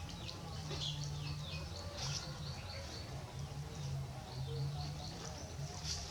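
Small birds chirping: many short, high chirps that slide downward, repeated all through, over a low steady hum.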